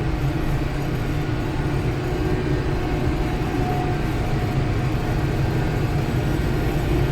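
Tractor engine running steadily under way, a low, even rumble.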